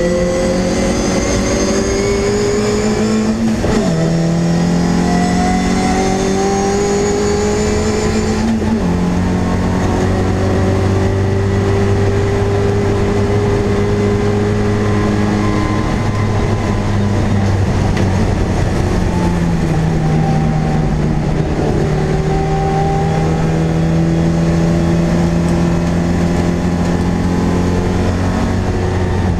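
MG Midget race car's four-cylinder engine, heard from inside the cockpit, pulling hard through the gears. Its pitch climbs and drops sharply at two upshifts in the first nine seconds, holds high, eases off for a few seconds in the middle, then climbs steadily again.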